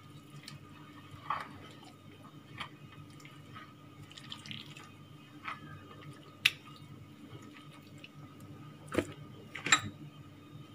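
Hands working a wet chermoula spice marinade into a chunk of meat in an earthenware dish: soft, faint wet squelches and drips, with a few sharp clicks and knocks, the loudest near the end, over a steady low hum.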